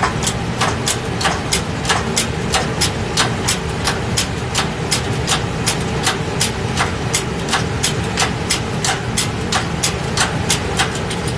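Hydraulic shop press being pumped by hand: sharp regular metallic clicks, about three a second, from the bottle jack's pump handle as it presses a tight wrist pin into a Ford 429 piston and connecting rod. A steady low hum runs underneath.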